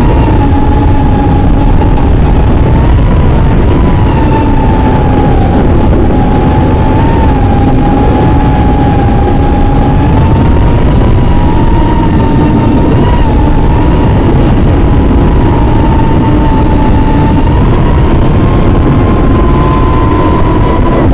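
Eachine Nano LR3 3-inch FPV quadcopter's brushless motors whining in flight, the pitch drifting slowly up and down and rising a little near the end, over a loud, steady rush of noise.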